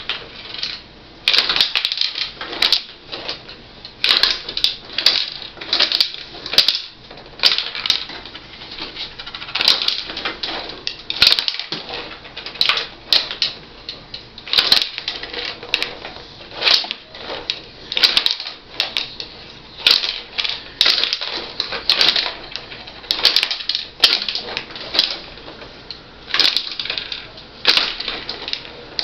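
Rod hockey game in play: the metal player figures and rods clacking and rattling as they strike the puck, and the puck knocking against the rink boards, a busy, irregular clatter of clicks.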